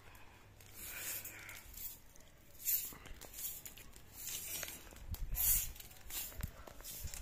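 Straw broom sweeping, with separate dry swishing strokes about a second or more apart. In the second half a low rumble and a few thumps run under the strokes.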